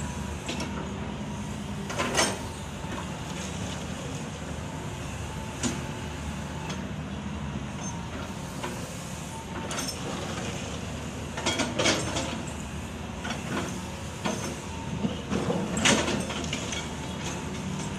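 Hitachi crawler excavator's diesel engine running steadily while working, with several sharp clanks and scrapes as the steel bucket digs into and drops sand and gravel; the loudest clanks come about two seconds in, around the middle and near the end.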